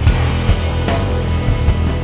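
Background music: driving rock with a steady beat and cymbal crashes.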